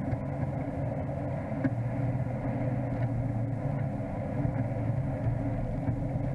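Off-road SUV's engine running steadily as it drives slowly, heard from inside the cabin, a continuous low hum.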